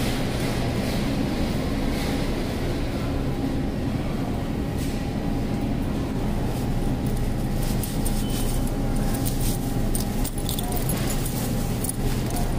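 Thin plastic produce bag being pulled open and handled, crinkling in quick crackles during the second half, over a steady low store hum.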